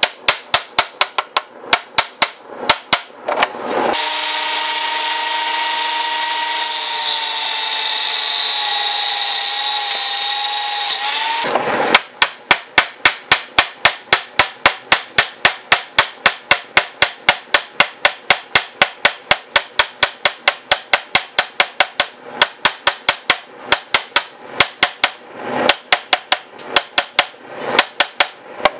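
Hand hammer striking red-hot steel bar on a small steel anvil while forging a square awl point, a rapid run of ringing blows at about four a second. The blows stop about four seconds in for a steady rushing noise with a faint whistle, and the hammering resumes about twelve seconds in.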